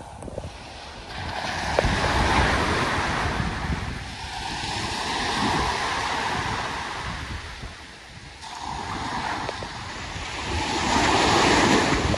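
Ocean surf breaking on the beach, swelling and falling back about three times, with wind buffeting the microphone.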